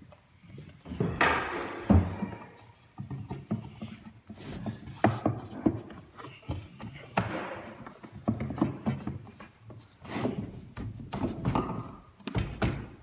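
Pine spindles and spacers being slotted into the rebates of a handrail and base rail: a run of wooden knocks and scraping as the pieces are pushed and tapped into place.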